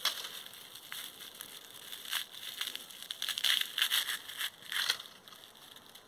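Dry patience dock seed heads crackling and rustling in several bursts as a hand strips the papery, well-dried seeds off the stalk. The sound dies down about five seconds in.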